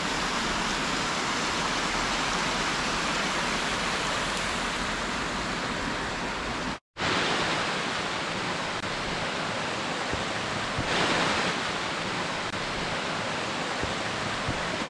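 Steady rush of water from a clough stream overflowing and cascading. It cuts out for a split second about seven seconds in, then carries on the same.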